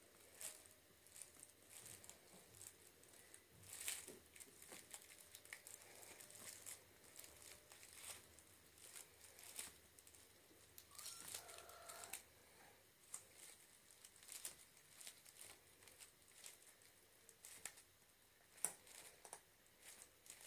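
Faint rustling, crinkling and scratching of kittens scrambling and wrestling on a fabric cat play mat, with many small scattered clicks and taps.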